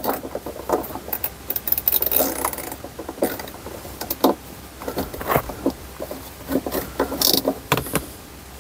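Hand tools and small metal parts being worked: irregular light clicks and knocks, as nuts are fitted and tightened in a cramped spot.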